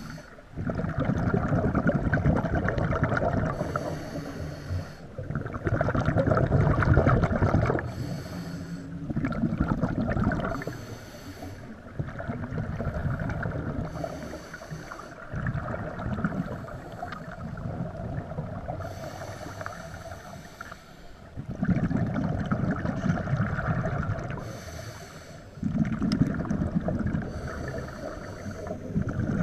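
Scuba diver breathing through a regulator underwater: a short hissing inhale, then a longer rumble of exhaled bubbles, repeating about every five seconds.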